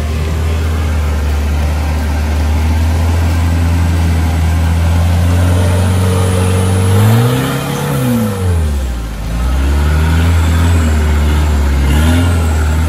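Off-road 4x4's engine pulling steadily under load, then revving up about seven seconds in, dropping away, and rising and dipping again near the end as the throttle is worked.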